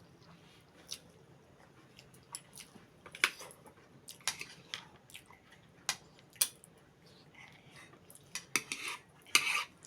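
Cutlery clinking on a plate while eating: irregular sharp clicks and taps, a few louder ones spread through.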